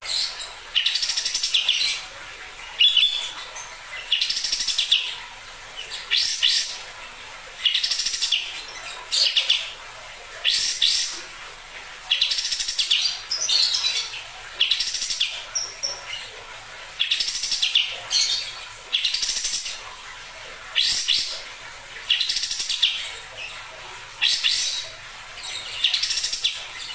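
A kapas tembak bulbul singing a short, high-pitched phrase over and over, roughly one every one and a half to two seconds, with brief pauses between.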